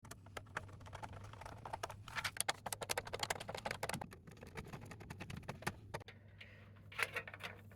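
Hands handling PC power supply cables and connectors: a quick run of small clicks and rattles, easing off about six seconds in with a few more near the end, over a faint steady hum.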